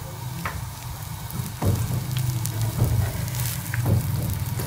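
Mooli paratha frying in ghee on a hot tawa: a sizzle with scattered pops and crackles over a low steady hum.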